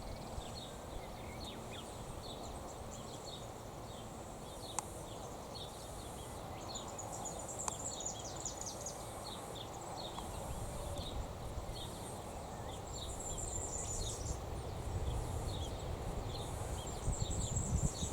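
Small birds chirping in quick short notes, with several high thin trills, over a steady low outdoor rumble.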